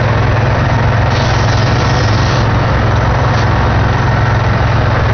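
Car engine idling steadily with the AC on max and its compressor clutch engaged. A brief hiss about a second in and a light click a little past the middle come as the recharge kit's gauge-hose quick connect is fitted onto the low-pressure service port.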